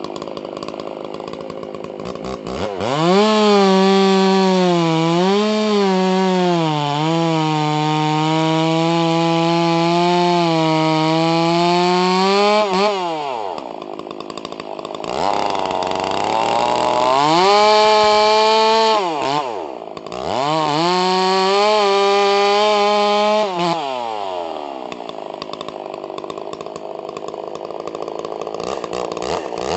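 Custom-ported Stihl MS660 two-stroke chainsaw with a 20-inch bar and 36RS chain cutting a semi-dry eucalyptus log. It idles, goes to full throttle a couple of seconds in and cuts for about ten seconds, its pitch dipping as it loads in the wood, then drops to idle. Two more bursts of full-throttle cutting follow around the middle, then it idles again and revs up once more right at the end.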